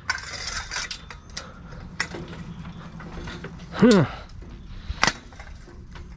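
Clicking and rattling of hand tools and metal parts as a scrap item is taken apart, with sharp clicks about two and five seconds in. A short, loud groan falls in pitch near four seconds.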